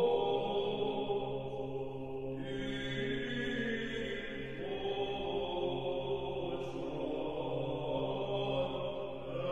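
Slow background music of long held tones that moves to a new chord a few times.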